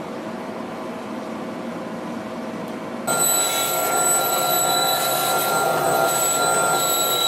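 A steady background noise, then about three seconds in, a band saw cutting a wooden blank along a marked line. It runs as a louder, steady high-pitched whine.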